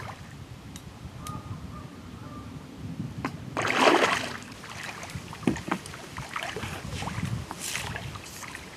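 A hooked carp splashing at the surface as it is played in close, with one loud splash about four seconds in, followed by lighter water sounds and a few sharp clicks.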